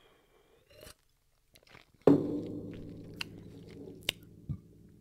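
Soda bottle set down on the desk with a knock about two seconds in, followed by a low ringing that slowly fades away; a few small mouth clicks and swallowing sounds around it.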